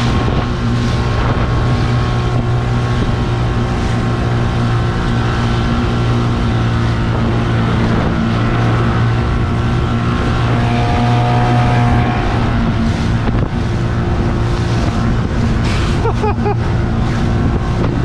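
Yamaha outboard motor running steadily at speed, its pitch holding even, with water rushing and splashing along the inflatable dinghy's hull.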